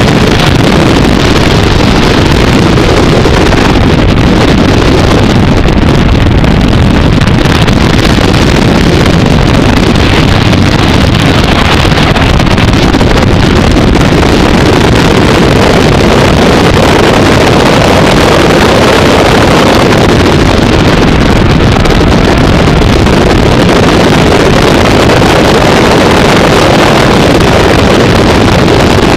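Abarth 500's turbocharged four-cylinder engine running hard on a track run, loud and unbroken, mixed with heavy wind buffeting on an outside-mounted camera microphone.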